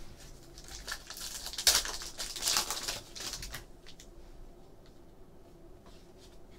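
Foil wrapper of a basketball trading-card pack being torn open and crinkled: a crackling rustle with sharp snaps from about a second in, loudest around two and a half seconds, fading by about three and a half seconds into faint handling of the cards.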